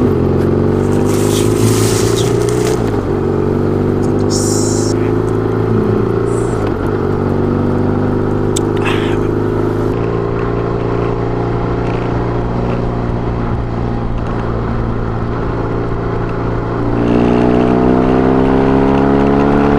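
BMW R1200GS boxer-twin motorcycle engine running under way, with a steady engine note. Near the end it rises in pitch and gets louder as the bike accelerates.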